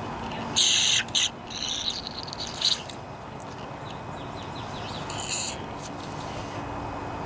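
Short hissing sprays of aerosol carburetor cleaner into a carburetor: a burst of about half a second, a quick second one right after, then a few shorter spurts.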